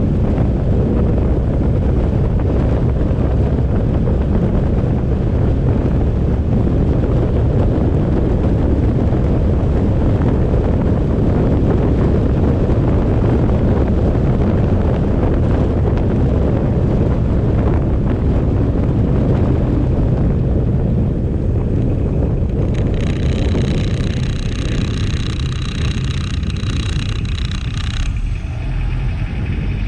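Wind buffeting the microphone over the low, steady rumble of a moving vehicle on the road. Near the end, a steady high-pitched whine with several tones sounds for about five seconds.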